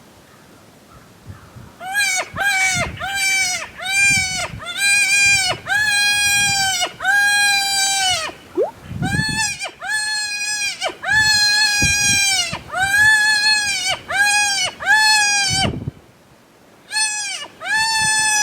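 Cottontail rabbit distress cries blown on a mouth diaphragm predator call: a long series of wavering, bleat-like wails, some short and some drawn out, breaking off briefly near the end and then starting again. It is a prey-in-distress sequence meant to lure a bobcat or coyote in.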